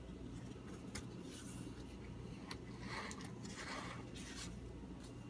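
Paper pages of a thin picture book being handled and turned: faint rustling and sliding with a few small clicks, strongest about three to four seconds in, over a faint low hum.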